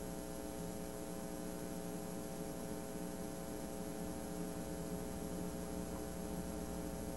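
Steady electrical hum made of several even tones over a faint hiss, with a thin high whine above it.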